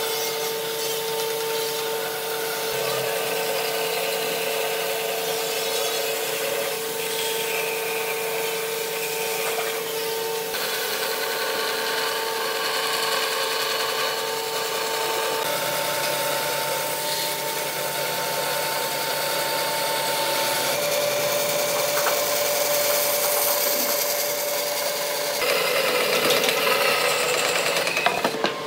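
A band saw running and cutting a curve through a thick wooden slab: a steady rasping hiss of the blade in the wood over a steady whine, the tone shifting abruptly a few times.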